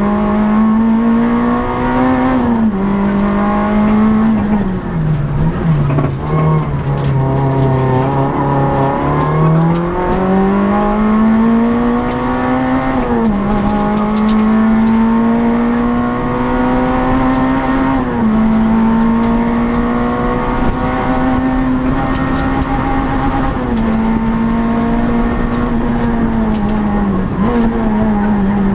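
Citroën Saxo Group N rally car's 1.6-litre four-cylinder engine at full throttle, heard from inside the cabin. Its note climbs steadily and drops sharply at each upshift, about five times. Around five seconds in it falls low as the car slows, then climbs again.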